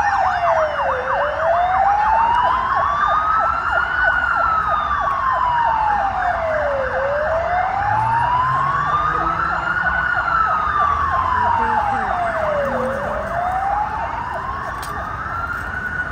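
Ambulance siren wailing: a slow tone rising and falling about every six seconds, with a quicker pulsing tone in the same range. It grows a little fainter near the end as the ambulance moves off.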